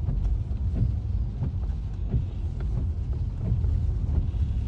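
Car driving, heard from inside the cabin: a steady low engine and road rumble with light irregular knocks.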